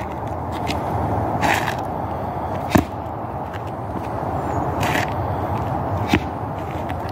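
Clothing swishing twice as arms whip through fast martial-arts strikes, with two sharp impacts from a slap or stamp, over a steady background hiss.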